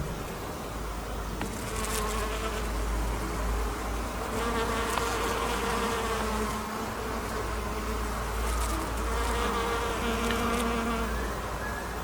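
A bee buzzing close by, its pitched drone swelling and fading several times as it moves, loudest about four to six seconds in and again near the end.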